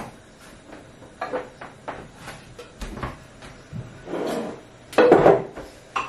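Kitchen handling sounds: a series of wooden knocks and scrapes as a wooden chopping board is lifted and set down on the worktop, and dishes are handled at the drying rack. A longer clatter comes about four seconds in and a louder one about five seconds in.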